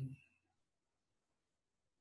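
Near silence: a pause in speech, with only the tail of a spoken word at the very start.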